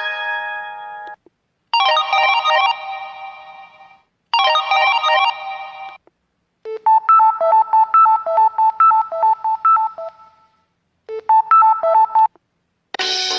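Short synthesized mobile-phone alert tones from a Samsung SGH-M620, played one after another with brief silences between them. There are two chiming chords that ring and fade, then a quick beeping melody of repeated notes, then a short reprise of it. Just before the end a fuller polyphonic ringtone begins.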